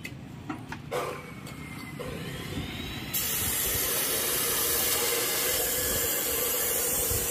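Power cutter on steel rebar: a motor hum and a faint rising whine, then a steady hiss that starts abruptly about three seconds in as the cut begins.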